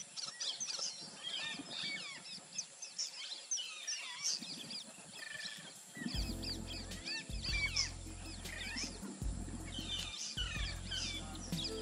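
Dense chorus of many small birds chirping and calling. About six seconds in, background music with low, held notes comes in under the birdsong.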